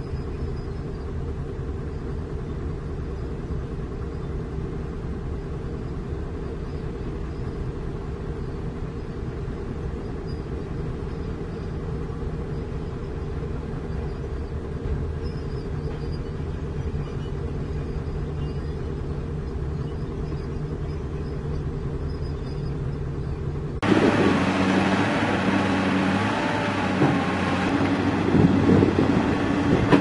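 Komatsu D65 bulldozer's diesel engine running steadily under load as it pushes dirt. About 24 seconds in, the sound changes abruptly to a louder, rougher one: an excavator working, its bucket digging into earth and rock.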